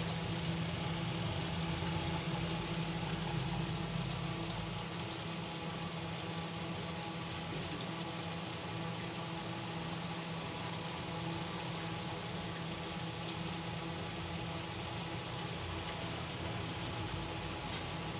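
Steady background hum with an even hiss and no distinct events.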